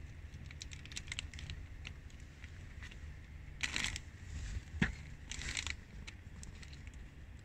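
A white high-top sneaker stepping down on a tiny figurine on a hard, smooth floor: a gritty scuffing crunch, a single sharp click, then another scuff as the shoe moves off.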